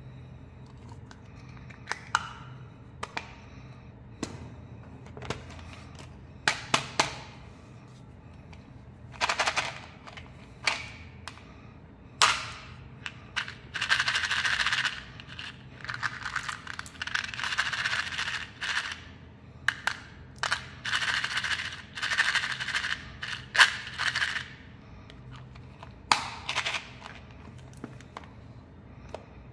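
Hands handling candy packaging, with scattered sharp clicks and taps. About halfway through come repeated bursts of small hard candies rattling inside an open plastic tub, and one shorter rattle near the end.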